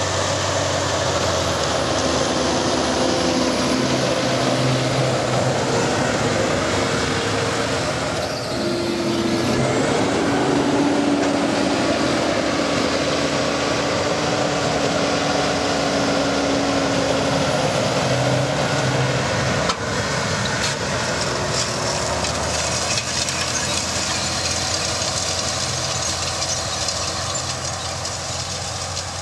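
John Deere 7530 tractor's six-cylinder diesel engine running steadily under load while pulling a Kuhn Speedliner 4000 seed drill through worked soil. The sound eases off slightly near the end as the tractor moves away.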